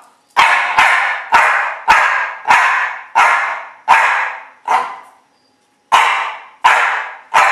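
Small Coton de Tuléar dog barking eleven times in a steady series, about two barks a second, with one short pause a little after the middle. The barks are her answer to the letter card K, counting out its place in the alphabet.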